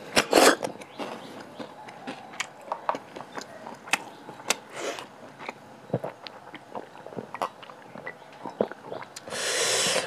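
Close-miked mukbang eating sounds: a loud slurp as a cooked snail is sucked from its shell, then wet chewing with many mouth clicks and smacks. A loud breathy hiss comes near the end.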